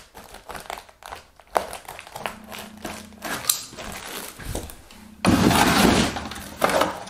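Handling noises from cutting a rubber-backed doormat with a utility knife: scattered light clicks and scrapes. About five seconds in comes the loudest sound, a rough scraping lasting about a second, as the cut bristle mat is pushed into a plastic milk crate, then a few knocks.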